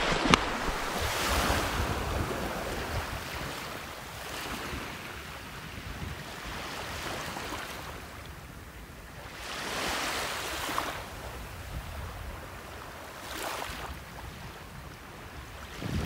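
Small waves washing onto the beach, a soft surf that swells and fades a few times, with wind rumbling on the microphone.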